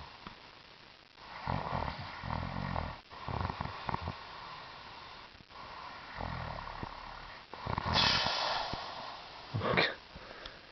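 A man snoring, a run of rough, rattling snores several seconds apart. There is a louder, hoarser snore about eight seconds in and a short, sharp snort near the end.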